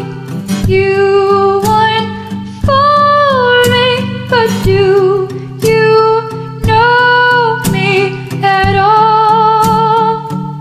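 A woman singing a run of long held notes with a slight vibrato over a karaoke backing track with guitar.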